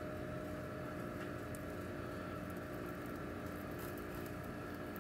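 Faint steady hum of room tone with a few constant tones and no distinct clicks or knocks; the wire slicer pressed slowly through the soft meat makes no clearly separate sound.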